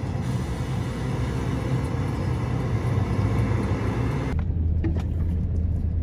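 John Deere combine with a corn head driving past, its diesel engine running steadily. About four seconds in, the sound cuts suddenly to the steady low drone of a moving vehicle heard from inside its cab.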